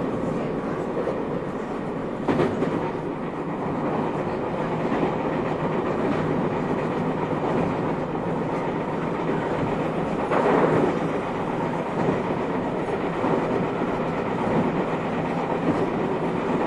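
Running noise heard inside the motor car of a JR 221 series electric multiple unit: a steady rumble of wheels and traction gear on the rails. There is a sharp clack about two seconds in and a louder clatter about ten seconds in.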